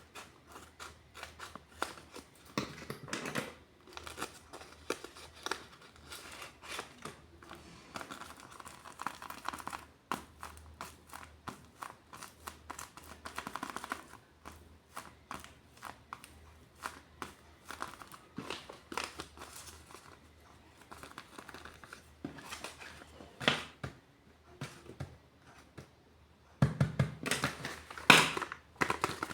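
Paper crinkling and rustling in short bursts, with some tearing, as a handmade paper blind bag is handled and opened by hand. The crinkling gets louder near the end.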